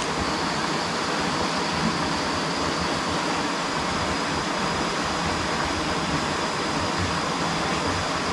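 Steady rushing of flowing river water, with a faint steady high whine running through it.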